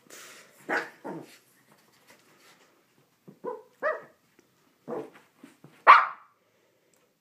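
A Shih Tzu barking in short, separate bursts as it attacks a bath towel, the loudest bark just before the end.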